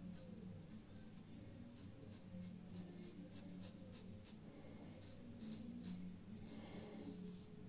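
Razor scraping stubble during a wet shave: a run of short, quick, faint scratchy strokes, about two or three a second, over a low hum.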